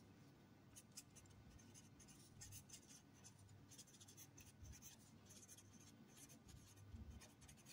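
Faint scratching of handwriting: many short strokes as figures are written out, over quiet room tone.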